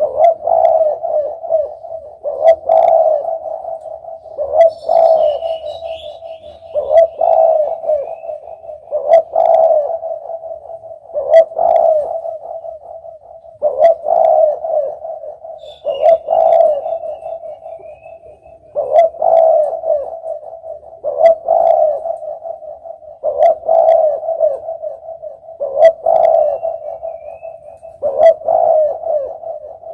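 Spotted dove (derkuku) cooing: a low coo phrase repeated over and over, a new phrase about every two seconds. Faint high chirps of another small bird come twice.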